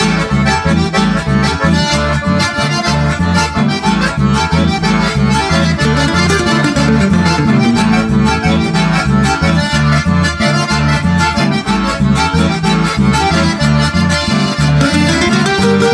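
Instrumental Argentine litoral-style dance music: accordions play the lead melody over strummed acoustic guitar and a steady, repeating electric bass line.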